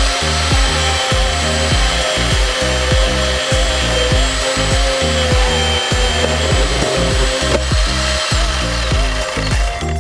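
Chainsaw running with a steady high whine, over background music with a rhythmic bass line.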